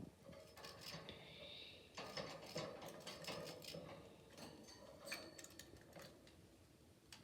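Faint patter and scattered small clicks of a budgie bathing in a shallow water dish, splashing and moving about, with a brief high chirp about a second in.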